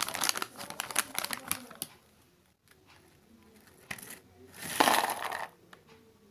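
Plastic biscuit packet being handled and opened: a run of sharp crinkles in the first two seconds, then a short, louder rustle near the end.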